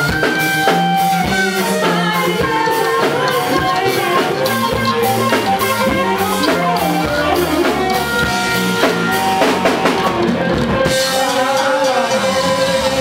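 Live rock band playing a full-band passage: drum kit, electric guitars and bass, with some singing. About ten seconds in the drums stop, leaving a single held, slightly wavering note.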